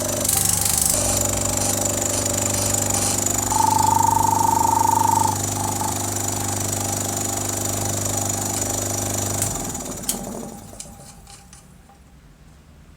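Iwata oilless air compressor running with a steady hum, with a brief high whistle about four seconds in; about nine and a half seconds in it is switched off and winds down.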